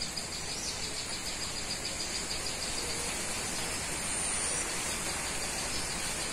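Insects trilling steadily: a fast, even, high-pitched pulsing over a background hiss, with a brief thin high whistle about four seconds in.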